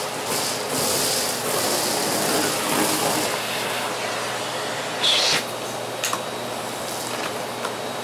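Miele S6 canister vacuum cleaner running steadily and sucking up shredded paper from a carpet, the paper rushing through the floor head and wand; a brief, louder hiss about five seconds in.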